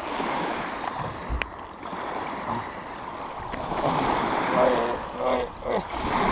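Small waves washing up and breaking on a sandy shore.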